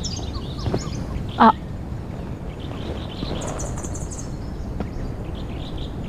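Rainforest ambience: birds chirping over a steady low background, with one short, loud pitched call about one and a half seconds in and a high, rapid trill around the middle.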